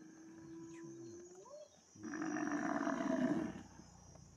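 Lions growling and snarling over a buffalo kill: a held low call that rises at its end, then a loud, rough snarl about two seconds in that lasts about a second and a half.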